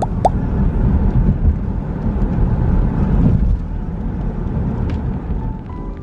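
Vehicle road noise: a low, uneven rumble, with a brief high squeak near the start.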